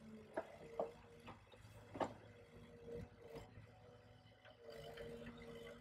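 Canal work boat's hydraulic crane and engine running faintly: a thin whine that comes and goes, with several sharp knocks in the first few seconds.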